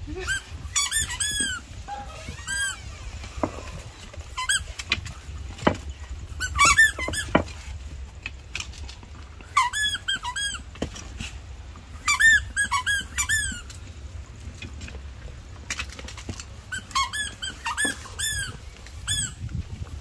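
Squeaky dog toy squeaking as a husky chews it: quick runs of several short squeaks, repeated in bursts every few seconds.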